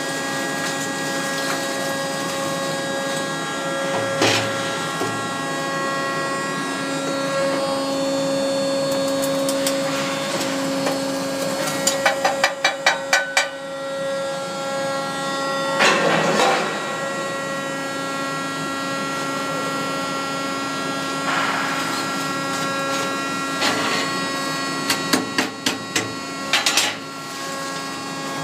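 Industrial shear for cutting catalytic converters running with a steady machine hum. Sharp knocks come in quick runs about halfway through and again near the end as converters are chopped, with one heavier crunch in between.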